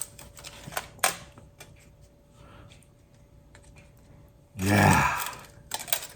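A person eating a piece of roast duck: short wet mouth clicks and smacks of chewing about a second in and again near the end, with a muffled, mouth-full murmur of approval shortly before the end.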